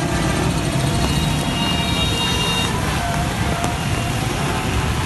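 Traffic in heavy rain on a wet road: a steady dense hiss of rain and tyres, with vehicle engines passing. A faint thin high tone sounds for about a second partway through.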